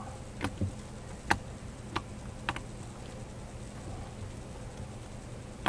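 Homemade slime being stretched and worked by hand, giving a few short sharp clicks and pops, about one every half second in the first few seconds and one more near the end.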